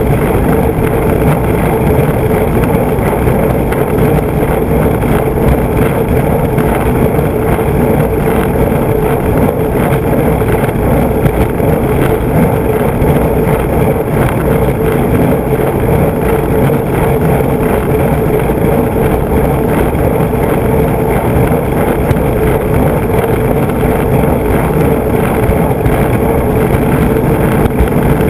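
Skateboard's 3DM urethane wheels rolling fast over rough asphalt: a steady, loud rumble with a constant hum. Heard close up from under the board, beside the truck.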